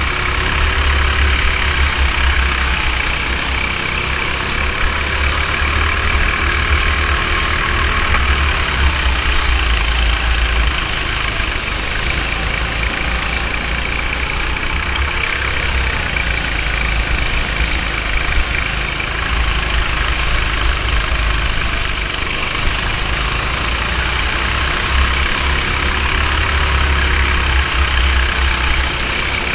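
Go-kart motor running at speed, heard from a camera mounted on the kart, its pitch slowly rising and falling as the kart accelerates and slows. A heavy low rumble sits under it throughout.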